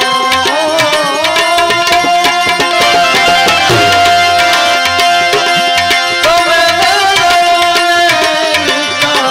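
Live Gujarati devotional bhajan music: tabla playing a fast, steady rhythm under a long-held melody line.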